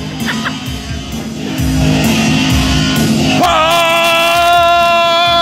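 Live rock band playing loudly: a low, steady drone for the first few seconds, then a single long, high held note comes in about three and a half seconds in and carries on.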